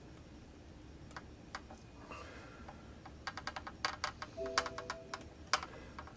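A scatter of small sharp clicks and taps, with a quick flurry of them in the middle. A short electronic beep from a computer comes a little after the flurry.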